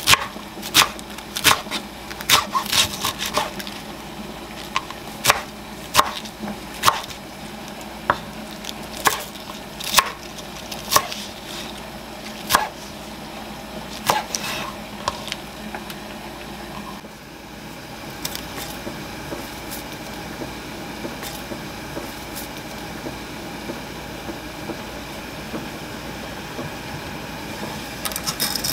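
Kitchen knife chopping lettuce and then chives on a wooden cutting board: sharp, irregular knocks of the blade on the board, sometimes several in quick succession. About 17 seconds in the chopping stops, and the steady hiss of a lit gas burner under a pot of water takes over, with a brief rattle near the end as dried noodles go into the pot.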